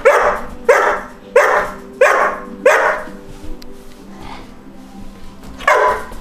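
A young dog barking. Five sharp barks come about two-thirds of a second apart, then after a pause one more bark comes near the end.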